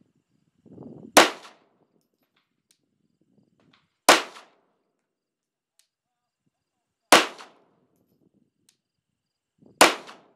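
Four single pistol shots fired slowly, about three seconds apart, each followed by a short echo.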